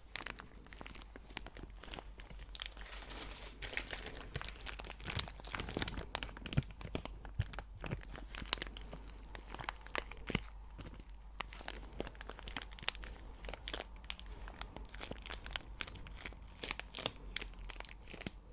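Packaging being crinkled and torn open by hand: a dense, continuous run of crackles and small rips.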